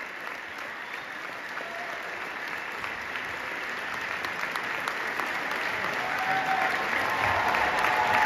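Large theatre audience applauding a curtain call, a steady clapping that swells louder over the last few seconds.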